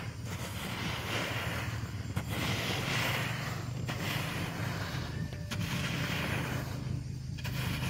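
A wooden rake being pushed and dragged through a layer of drying paddy rice on a tarpaulin, turning the grain. Each stroke makes a rustling swish of grain, about one every second and a half to two seconds, over a low steady hum.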